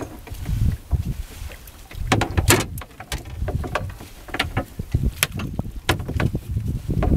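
Double-ended monofilament fyke net being hauled by hand over the side of a small boat: a run of sharp clicks, knocks and splashes as the wet net and line come aboard, over a low wind rumble.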